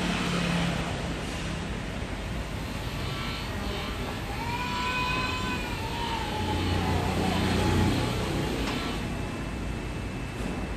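Steady background traffic noise, with an engine passing by in the middle whose tone rises and then falls away.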